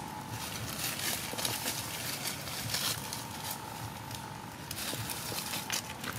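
Dry leaf litter crackling and rustling in many small irregular clicks as macaques move over it. A faint steady tone comes and goes in the background.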